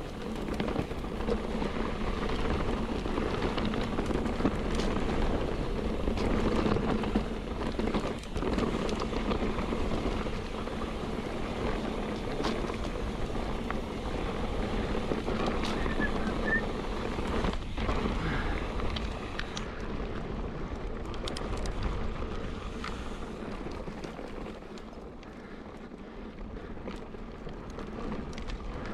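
Mountain bike riding a dirt trail: wind rushing over the microphone along with tyre noise, and occasional short knocks from the bike going over bumps. It eases off somewhat near the end.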